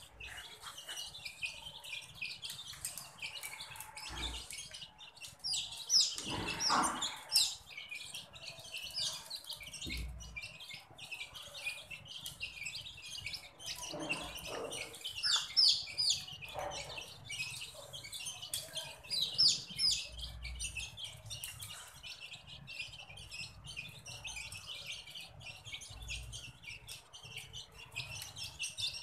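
A flock of young chicks peeping continuously in dense, overlapping high-pitched cheeps as they feed, with a few louder calls standing out now and then.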